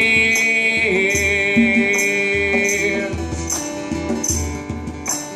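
Live acoustic band music: a long held sung note over strummed acoustic guitar and a steady percussion beat. The held note ends about three seconds in.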